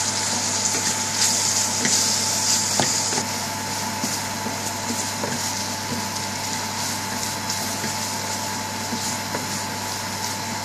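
Onion and sardine mixture sizzling in a stainless steel frying pan while a wooden spoon stirs and scrapes through it, with a few light scrapes and clicks; the sizzle is strongest at first and eases after about three seconds. A steady low hum runs underneath.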